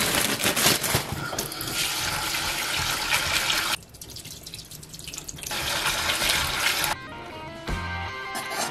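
Kitchen tap water running into a stainless steel sink and over a small metal bowl of bean sprouts as they are rinsed, with a quieter stretch a little before halfway. About seven seconds in, the water gives way to background music.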